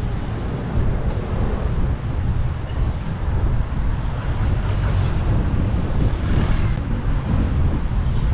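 Wind buffeting the microphone while riding an electric scooter at speed: a steady low rumble that rises and falls with gusts, with road and traffic noise mixed in.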